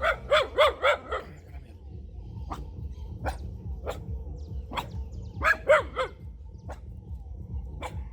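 A dog barking: a quick run of four or five barks at the start, then single barks now and then, and another run of three or four barks about five and a half seconds in.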